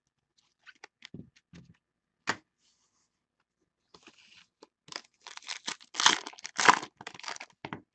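Foil Panini Contenders baseball card pack being handled and torn open: a few light taps and rustles, then from about five seconds in some three seconds of dense crinkling and ripping.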